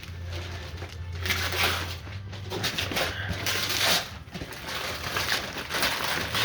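Gift wrapping paper being torn and crumpled as a present is unwrapped, an uneven crackling rustle that comes in surges from about a second in.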